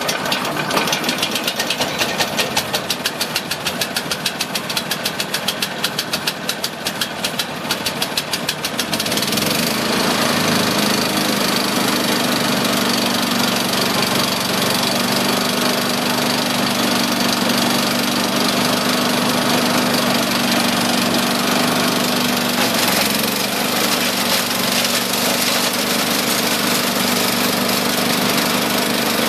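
Single-cylinder 13 hp Honda-clone engine on a wood chipper-shredder, idling with distinct, evenly spaced firing beats, then throttled up about nine seconds in and running steadily at speed. Its pitch dips briefly about two-thirds of the way through.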